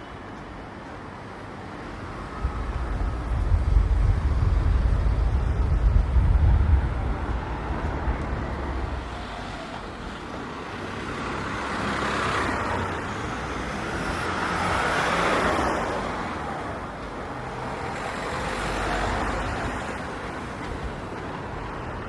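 Road traffic on a city street: cars passing one after another, their tyre and engine noise swelling and fading three times in the second half. A deep low rumble, the loudest sound, lasts from about two seconds in to about eight seconds in.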